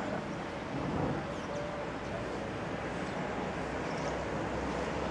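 Steady outdoor background noise with a low hum underneath, and a couple of faint high bird chirps.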